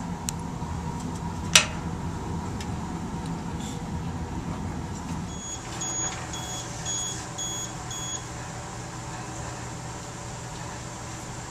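A single sharp metallic clink about a second and a half in, as the sample holder goes into the critical point dryer's chamber, then five short electronic beeps about two a second, over a steady equipment hum.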